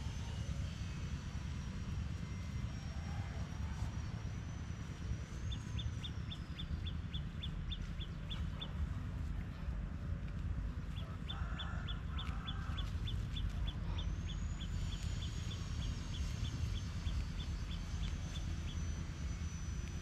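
Steady low outdoor rumble, with a faint series of short high pips repeating about three times a second through most of it.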